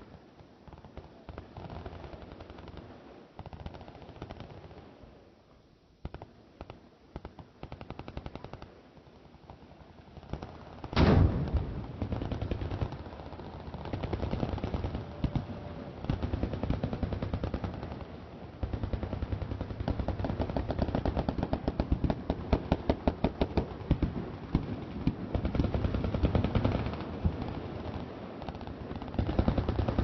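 Machine guns firing downrange: scattered shots and short bursts at first, a single loud boom about eleven seconds in, then many guns in continuous rapid automatic fire.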